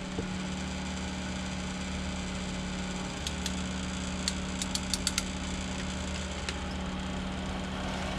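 A steady low electrical hum, with a quick run of sharp clicks about three to five seconds in from a ratcheting wire crimper squeezing terminals onto wires.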